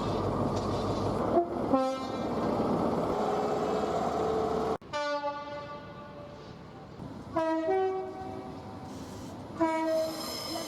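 Train horns sounded several times: a two-tone blast, one tone then another, about a second and a half in, then after a sudden cut further blasts about five, seven and a half and ten seconds in, the one near seven and a half seconds again two-tone. Steady train running noise lies under them.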